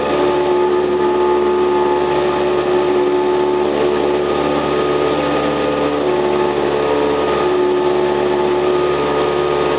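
Cessna 172R's four-cylinder Lycoming engine and propeller running at a steady high power setting for takeoff and climb, heard inside the cabin as a constant drone.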